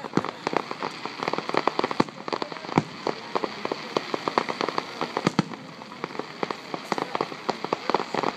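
Aerial fireworks bursting: a dense crackle of many small sharp pops from gold crackling stars, with a few louder bangs about two, three and five seconds in.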